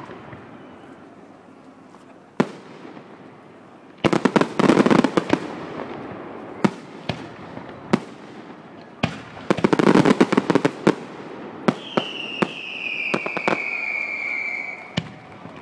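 Fireworks display: scattered single bangs of aerial shells, with two stretches of rapid crackling bursts about four and nine seconds in. Near the end a high whistle slides slightly down in pitch over about three seconds.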